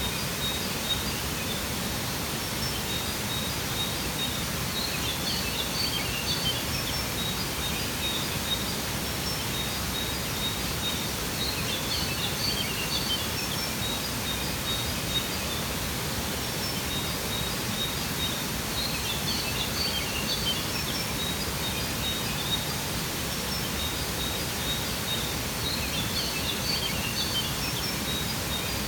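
Steady rush of a waterfall, with small birds chirping in short clusters every several seconds over it.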